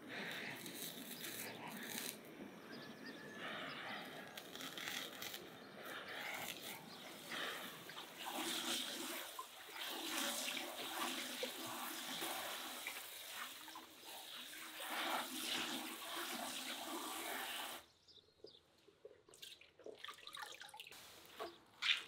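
Tap water pouring into a bowl in a kitchen sink while fresh herbs are washed by hand, splashing steadily. The water cuts off suddenly about three-quarters of the way through, leaving quiet, scattered rustles and small clicks as the wet herbs are handled.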